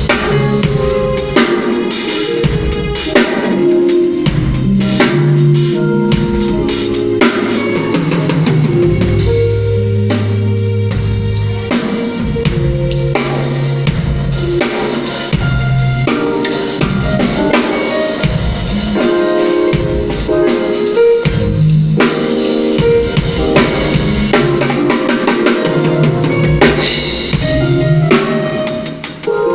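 Band music playing at a sound check: a drum kit keeps a steady beat of kick and snare under held, changing bass and chord notes, with no singing.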